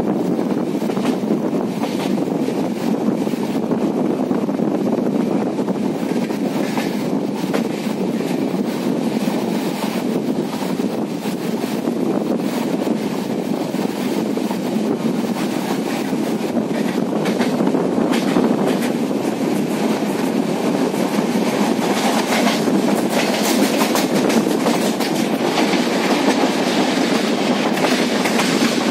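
Passenger train heard from inside the moving coach at an open door or window: a steady rumble of the wheels on the rails, with wheel clicks over the track joints. More hiss comes in over the second half.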